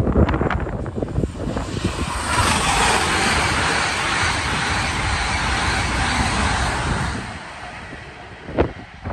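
High-speed electric passenger train passing at speed close by: a loud, even rush of wheels and air that builds over the first couple of seconds and fades out about seven seconds in. Wind buffets the microphone at first, and a single sharp knock comes near the end.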